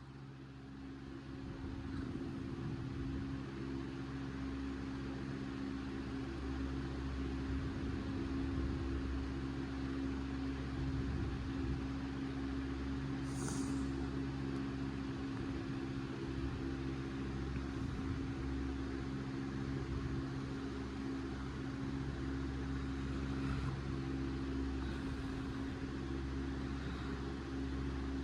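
Steady low mechanical hum from a running motor, made of several even tones, swelling over the first couple of seconds and then holding level.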